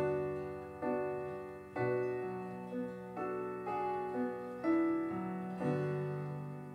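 Quiet keyboard passage with a piano sound: slow chords struck about once a second, each ringing and fading, over held low notes.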